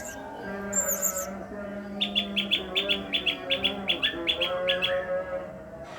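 Blue-crowned hanging parrot (serindit) calling: two high, thin sweeping notes in the first second, then a fast run of sharp chirps, about four or five a second, from about two seconds in. Steady background music runs underneath.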